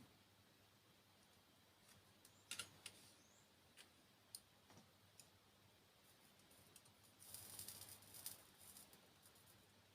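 Near silence with a few faint clicks of small tools being handled, and a brief faint hiss about seven seconds in: flux sizzling under the tip of a soldering iron.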